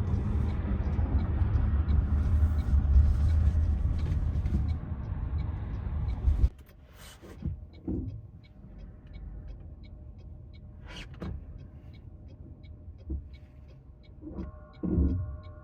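Steady low rumble of a 2025 Toyota Prius heard from inside the cabin while driving. It cuts off abruptly about six and a half seconds in, leaving a much quieter background with a few faint knocks. A steady sustained tone of several pitches starts near the end.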